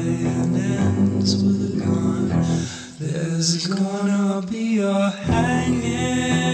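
Music: a guitar-led song with a singing voice, dipping briefly about three seconds in.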